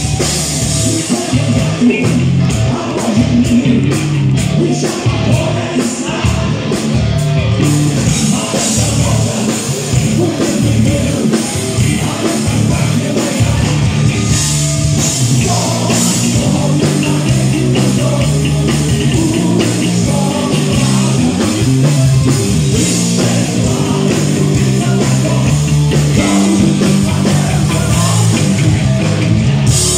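Heavy metal band playing live: singing over electric guitars and drums.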